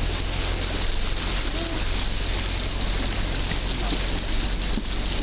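A car fording a river: water rushing and splashing against the body and wheels, with a steady low engine rumble underneath.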